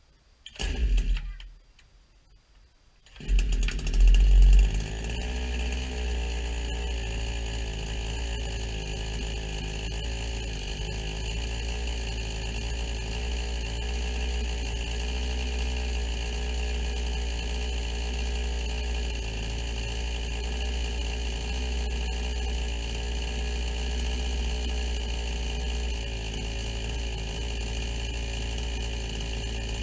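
Brand-new 62cc two-stroke chainsaw starting for the first time out of the box: a few short sounds, then the engine catches about three seconds in. It is loudest for about a second, then runs steadily.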